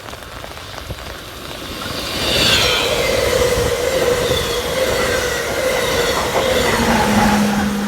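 Amtrak Keystone passenger train passing at speed, cab car leading and an ACS-64 electric locomotive pushing at the rear. A rush of wheels on rail builds up about two seconds in and stays loud, with a thin steady whine over it and a low hum joining near the end.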